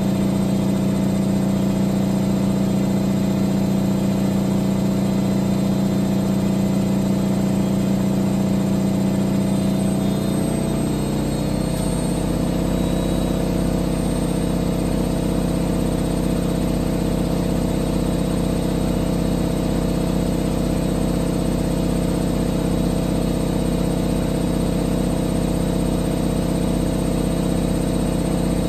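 Siemens Siwamat XS 1060 front-loading washing machine spinning: a steady motor hum and whine from the drum drive. About ten to twelve seconds in the tone shifts to a new pitch as the spin speed changes, then holds steady.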